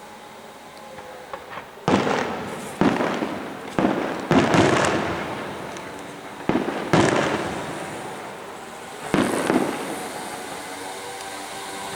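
Fireworks shells bursting in the air: after a quiet start, a string of about seven sharp bangs, each trailing off as it echoes, bunched between about two and five seconds in and again around seven and nine seconds.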